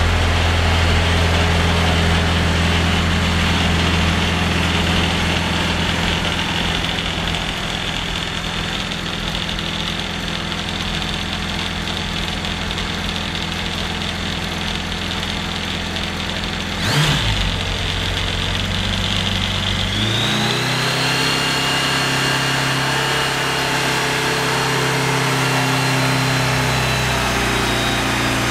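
Rotax 914 turbocharged flat-four aircraft engine running steadily on a dynamometer test stand. A little past halfway its pitch briefly dips and recovers, and about two-thirds of the way through the engine speed rises and holds at a higher, steady pitch.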